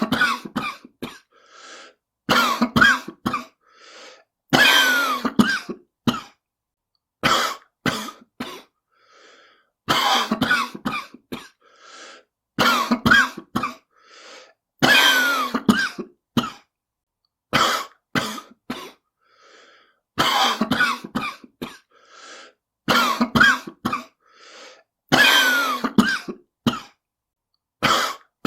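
A person with a smoker's cough coughing in repeated fits of several coughs each, a new fit every two to three seconds, with quieter breaths drawn in between.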